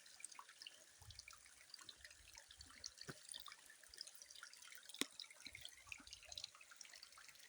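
Faint dripping and trickling of spring water into a pool: many small scattered droplet plinks, with one sharper click about five seconds in.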